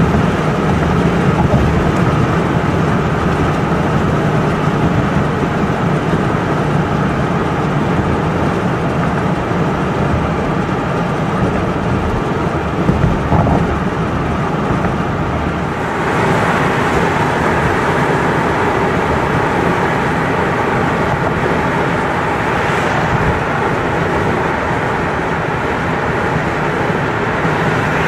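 Ford Bronco Warthog prototype driving on the road, its engine and exhaust heard from a car close by, mixed with steady tyre, wind and traffic rumble. About 16 seconds in, the sound turns brighter and hissier.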